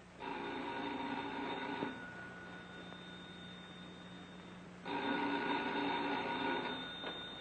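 Telephone bell ringing: a long ring near the start, then a second long ring starting about five seconds in.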